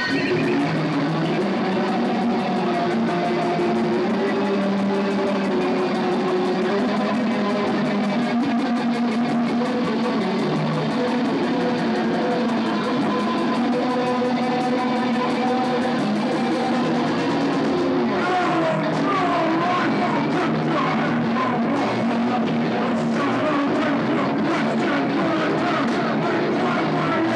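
Rock band playing live and loud: electric guitar over a drum kit, with a brief break in the cymbals and top end about two-thirds of the way through before the band carries on.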